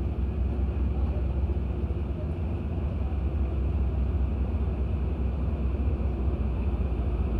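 Diesel-electric locomotive running light at low speed, its diesel engine giving a steady low rumble that grows slightly louder as it approaches.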